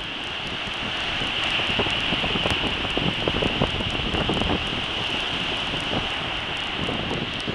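Wind buffeting the camera microphone over the steady rush of surf breaking on the beach, with an even hiss throughout.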